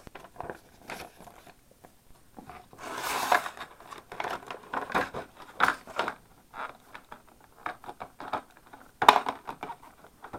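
Box packaging being handled: irregular crinkling and rustling with small clicks and knocks, with louder bursts of rustling about three seconds in and again near the end.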